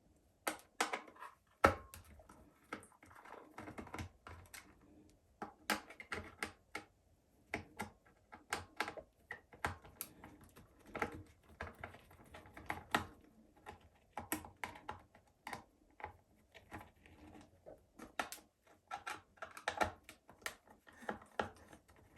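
Irregular small clicks and taps of a screwdriver and plastic parts while the screws are taken out of a solar garden light's housing.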